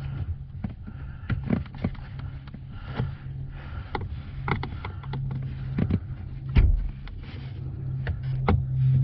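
Screwdriver prying along the cut seam of a plastic HVAC heater box, giving irregular clicks and cracks as re-melted plastic bits break loose, with a sharper knock about two-thirds of the way through. A steady low hum runs underneath.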